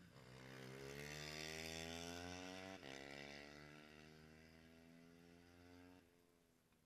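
A motorcycle engine on the track accelerating, its pitch climbing, then a gear change about three seconds in and a second climb. It grows louder, fades, and drops away sharply near the end.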